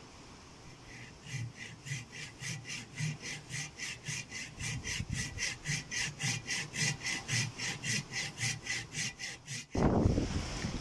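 Hand saw cutting through wood in steady back-and-forth strokes, about three a second. The sawing stops shortly before the end as a louder, rougher noise takes over.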